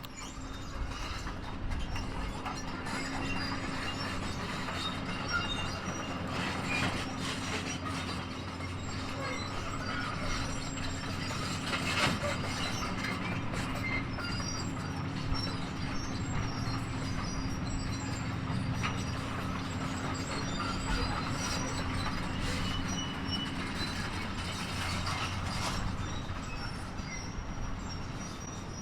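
Large diesel machinery running steadily, with irregular metal clanks and high squeaks over a low rumble.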